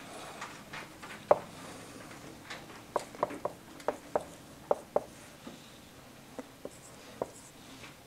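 Dry-erase marker tapping and squeaking on a whiteboard as numbers are written, a string of short sharp taps that comes thickest in the middle and thins out toward the end.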